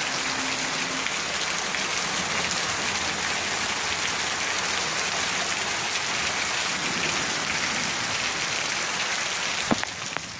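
Heavy rain falling steadily on a street and rooftops. The sound cuts off abruptly near the end.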